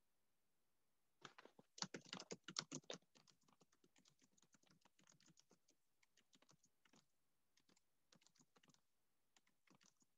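Typing on a computer keyboard, faint: a quick flurry of keystrokes about two seconds in, then lighter, scattered key taps for several more seconds.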